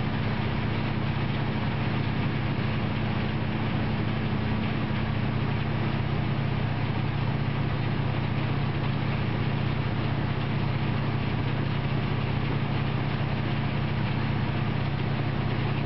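A vehicle engine running steadily with a low hum over constant noise, with no change in pitch or level.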